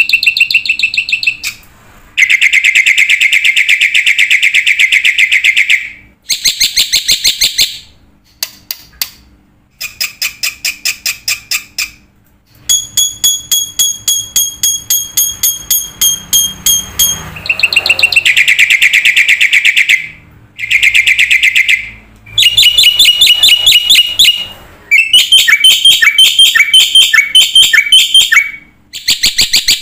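A bird singing a series of loud, rapid trills, one phrase after another with short pauses between them.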